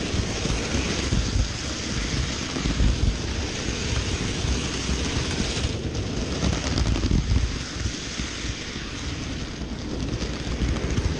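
Continuous rumble and rattle of an OO-scale model train's wheels running on the track, picked up by a camera riding on a wagon at the back of the train. It eases a little for a couple of seconds past the middle.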